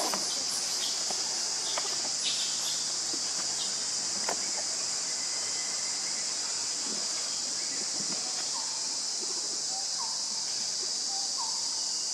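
Steady, high-pitched drone of insects such as cicadas or crickets. From about two-thirds of the way in, short faint chirps repeat about once a second.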